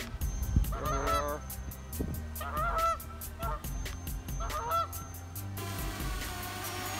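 Geese honking in four short bouts of calls over the first five seconds or so, with a steady, even ticking beat underneath.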